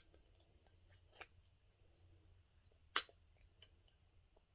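Plastic opener on the cap of a marble-sealed Ramune-style soda bottle being worked by hand: a faint click about a second in, then one sharp snap about three seconds in.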